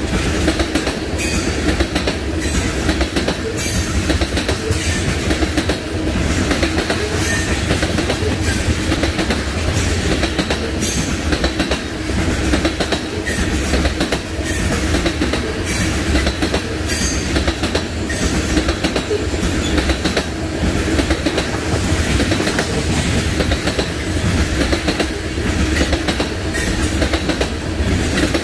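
Norfolk Southern freight train rolling past close by, its wheels clacking over the rail joints in a steady rhythm of about one or two clicks a second under a continuous rumble.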